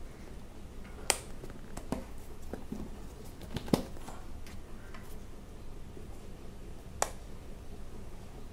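Stiff black cardboard phone-box packaging being handled: a few sharp clicks and taps as the inner tray is lifted out and turned over, the loudest a little before halfway.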